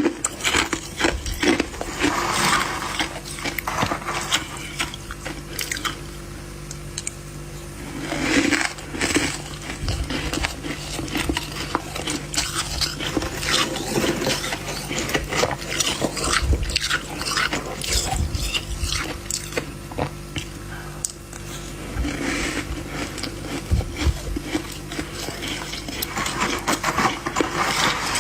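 Fluffy freezer frost being bitten and chewed close to the microphone: repeated crisp crunching with scraping, over a steady low hum.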